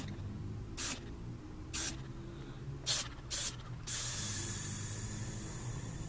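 Gallo Gun drain-clearing tool blowing gas into a PVC condensate drain line to clear debris. It gives several short hissing blasts, then a steady hiss from about four seconds in.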